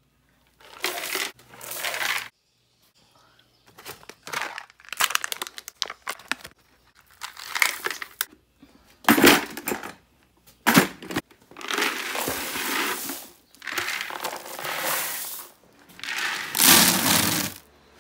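Dry horse feed, pellets and chopped hay pieces, poured from a scoop and tipped out of plastic buckets, rattling and rustling in a string of short pours a second or two long with brief gaps between.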